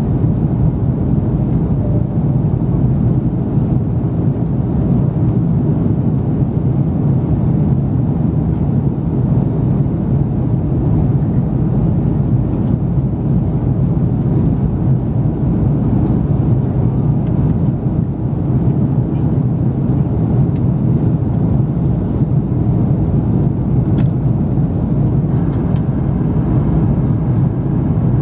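Steady engine and airflow noise inside the cabin of an Airbus A330-300 climbing after takeoff, from its General Electric CF6-80E1 turbofans. The sound is strongest in the low range.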